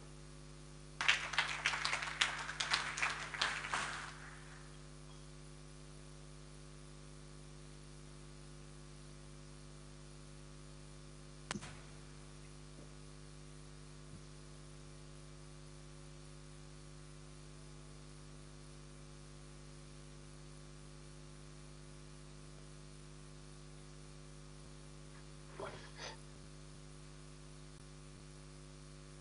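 Steady electrical hum from the sound system, with a short burst of applause about a second in that fades out after about three seconds. A single click comes near the middle and two faint clicks near the end.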